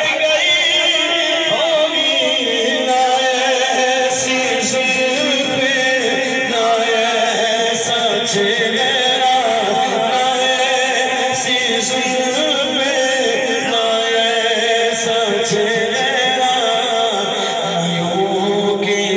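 A man singing an Urdu naat, a devotional poem in praise of the Prophet, into a handheld microphone, with long, wavering held notes.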